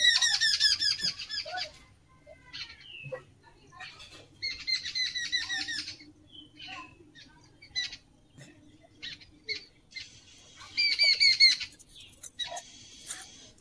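A bird chattering: three bouts of quick, repeated, falling chirps, about ten a second, the first the loudest, with single chirps scattered between.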